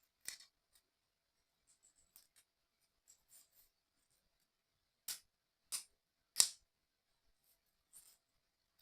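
Small 3D puzzle-kit parts being handled and fitted together: light scattered clicks and taps, with three sharper clicks a little past the middle, each under a second apart.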